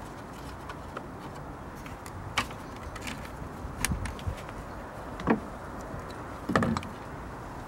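A few separate clicks and knocks from a plastic engine cover being pressed and seated on the engine by hand, then a socket wrench being picked up, over a steady faint background hiss.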